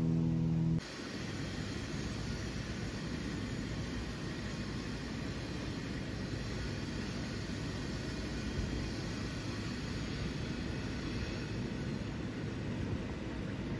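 Jet airliner passing high overhead, its engines making a steady, even rushing noise. Under a second in, a low steady hum cuts off and the jet noise takes over.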